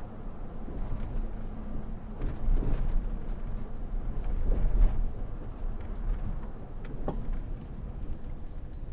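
Car driving along a city street, heard from inside the cabin: a steady low rumble of engine and road noise.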